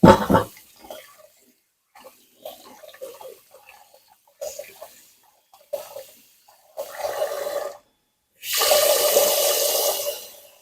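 Water running in several short spurts, then pouring steadily for about two seconds near the end, with a sharp knock at the very start.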